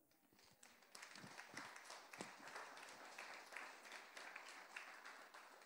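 Faint applause from a congregation, many hands clapping, building about a second in.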